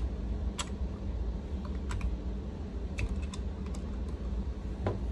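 Scattered small clicks of a screwdriver and screws as the longer screws are set and turned into a Look Pivot ski binding's heel piece, about half a dozen irregular ticks over a steady low hum.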